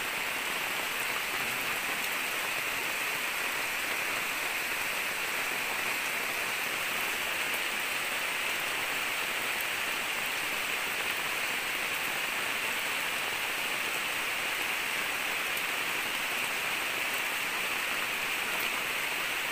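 Steady rain falling on forest foliage: an even, unbroken hiss.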